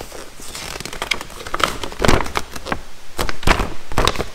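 Glossy paper brochure and warranty sheet being handled and flipped over in the hands, rustling and crinkling irregularly, with a few louder paper snaps around the middle and near the end.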